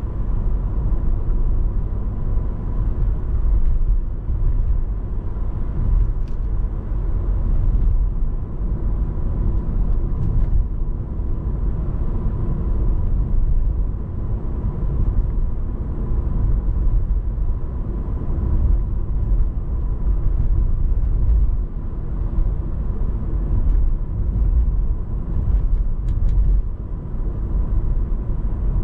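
Steady low rumble of a Mercedes-Benz C220 CDI diesel car on the move: road and driving noise.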